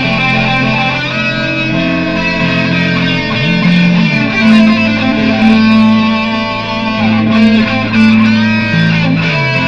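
Layered electric guitar improvisation over a looped guitar part: sustained notes with a few bent notes sliding in pitch, about a third of the way in and again near the end.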